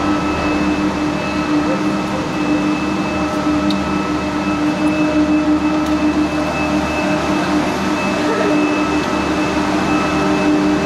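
Gondola lift terminal machinery running: a loud, steady mechanical hum with a constant high whine above it as the cabins move through the station.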